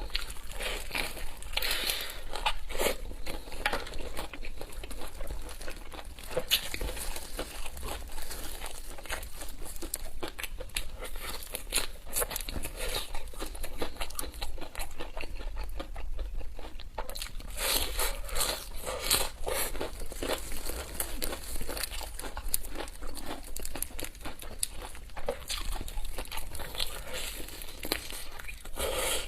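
Fried chicken being handled and eaten: a steady run of irregular crinkling from its wrapping, with crunchy bites and tearing.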